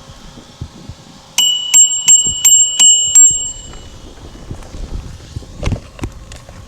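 Bicycle bell rung six times in quick succession, about three rings a second, its tone ringing on briefly after the last strike. A few knocks and a low thump follow.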